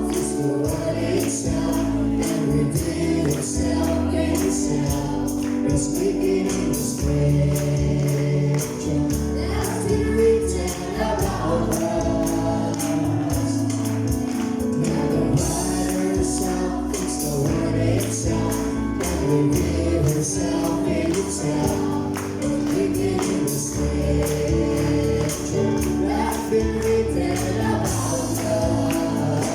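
Congregational gospel singing with a choir of voices over a band, with a tambourine keeping a steady beat.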